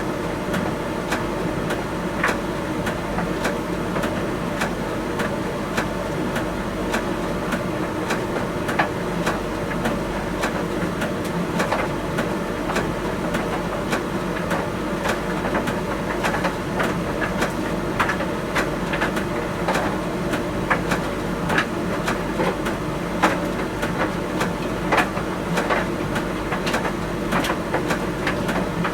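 Miele T1 heat pump tumble dryer running: a steady hum with frequent, irregular light clicks and taps.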